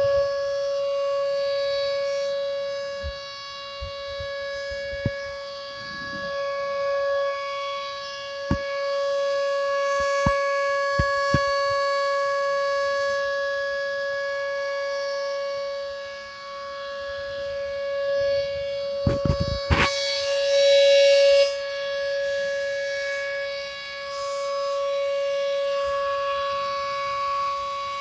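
Whelen Vortex R4 rotating electronic outdoor warning siren sounding a steady, unchanging tone for a tornado drill, swelling and fading as its horn head turns. A few light knocks and a brief rustle near the microphone sit under it.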